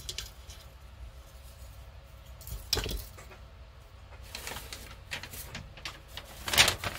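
Plastic model kit parts being handled and fitted by hand: scattered light clicks and knocks over soft rustling, the loudest knock near the end.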